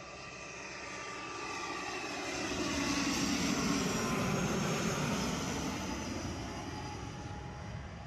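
Airliner on final approach passing low overhead: its engine noise swells to a peak about three to five seconds in and then fades, its whine falling in pitch as it goes by.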